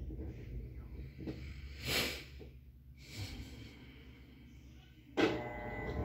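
Whirlpool 17 kg top-load washing machine running its automatic self-test: a low faint hum with a short noise about two seconds in. About five seconds in, the washer's motor starts suddenly with a steady whine that grows louder as the drum begins moving.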